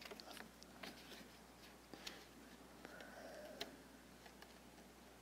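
Near silence: quiet room tone with a few faint, scattered ticks.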